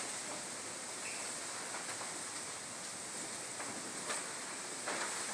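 Steady background hiss with a few faint clicks.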